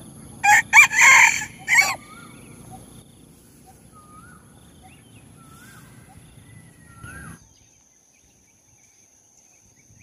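A rooster crowing once, about half a second in, for about a second and a half, followed by a few faint short chirping calls.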